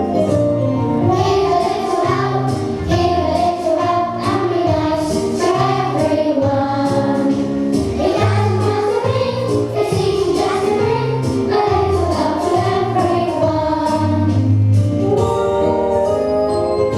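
A group of children singing a song together over an instrumental backing track. The singing comes in about a second in and stops a couple of seconds before the end, leaving the instruments playing on.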